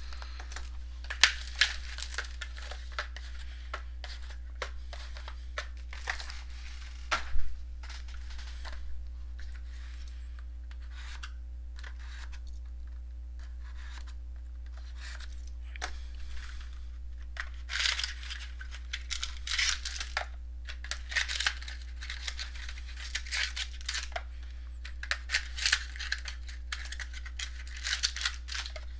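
Trading-card box and pack wrapping being torn open and crinkled, in bursts of rustling and small clicks, with a sharper knock about seven seconds in, over a steady low hum.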